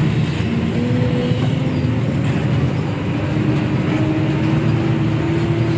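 Diesel engine of a Hino RG bus running under way, heard from inside the bus, its pitch rising slowly as it pulls.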